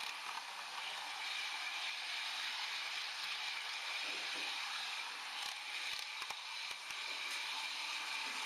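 H0 model train running along the track, heard from a camera riding on it: a steady rolling hiss from the wheels and small motor, with a few quick clicks over rail joints about two-thirds of the way through.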